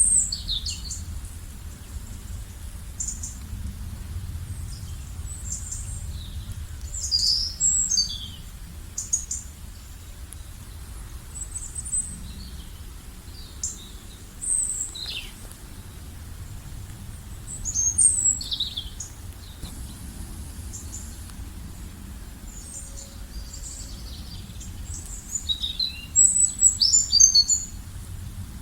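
Several songbirds chirping and calling in short, high notes and quick whistles, busiest in a few flurries, over a steady low rumble.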